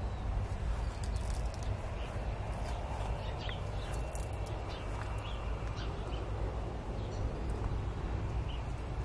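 Outdoor garden ambience: a steady low rumble under scattered short, high bird chirps, thickest in the middle stretch.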